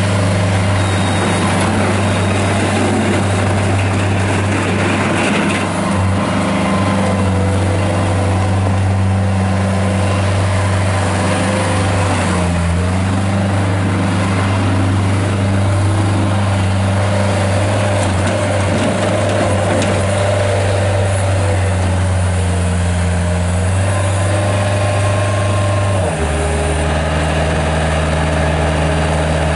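2007 Bobcat S175 K-Series skid steer's Kubota diesel engine running steadily at a raised throttle. About 26 seconds in, the engine note drops to a lower pitch as it is throttled down.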